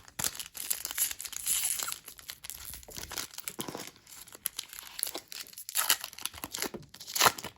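Plastic trading-card pack wrapper crinkling and tearing as the pack is opened by hand, a run of irregular crackles.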